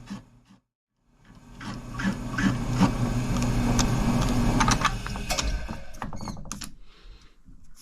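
Mill-drill spindle running with a boring head cutting metal: a steady machine hum with regular ticks about three times a second. It dies away over the last couple of seconds as the machine winds down.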